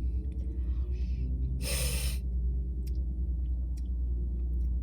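Steady low rumble inside a parked car, with one short, sharp breath about two seconds in and a few faint small clicks.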